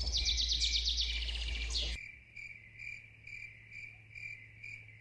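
Crickets chirping at night in a steady, even rhythm of about two chirps a second, starting at a cut about two seconds in. Before the cut, a rapid high warbling trill plays over a low hum.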